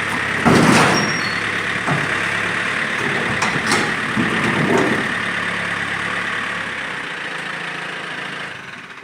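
A vehicle engine running steadily, with a loud clank about half a second in and a few lighter knocks of metal after it. The engine sound fades away over the last two seconds.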